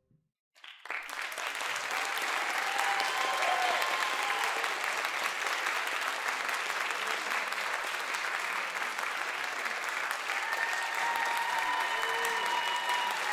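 Concert audience applauding, breaking out suddenly about half a second in and holding steady.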